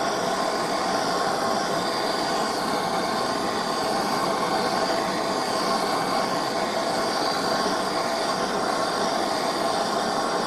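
Machine tool running steadily: an even whine and hum that holds unbroken throughout.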